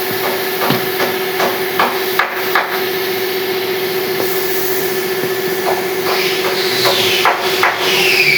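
Hammer strikes on wood, a regular run of about two or three knocks a second that slows and thins out later, over a steady machine hum. A few high, falling squeals come near the end.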